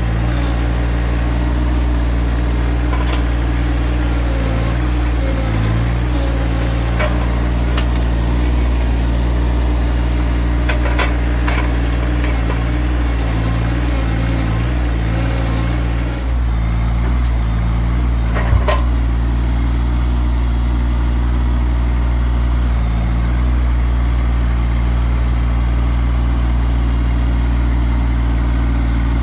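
Tractor engine running steadily, its pitch shifting slightly now and then under load, with a few short sharp knocks as the forks work at frozen logs.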